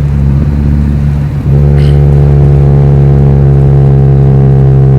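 Chevrolet Astra 2.0 four-cylinder with a straight-pipe exhaust and no muffler, droning loudly. About one and a half seconds in, it steps up to a louder, fuller note under throttle and holds it at steady revs.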